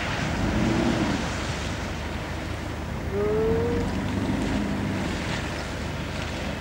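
Wind buffeting the microphone: a steady rushing noise, with faint distant voices in the background.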